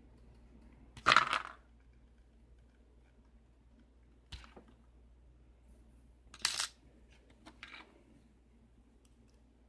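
Small metal pieces of a Kwikset lock cylinder and tools clinking against a hard surface, four times, the first the loudest.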